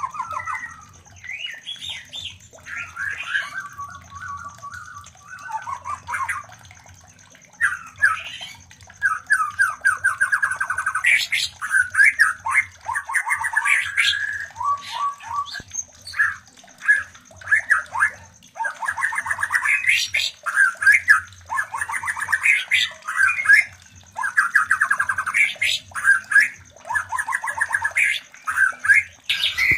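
White-rumped shamas giving fast, harsh rattling trills and chattering phrases almost without pause, with short gaps of a second or so: the calls of shamas mating.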